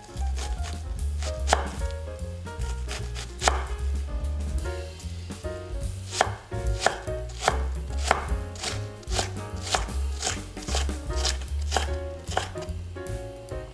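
Knife chopping vegetables on a cutting board: scattered cuts at first, then a steady run of about two chops a second from about halfway through.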